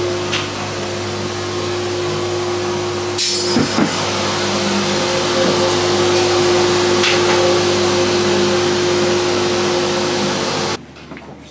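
A machine running with a steady whir and hum that holds one constant tone, with a brief clatter about three seconds in. The noise cuts off suddenly near the end.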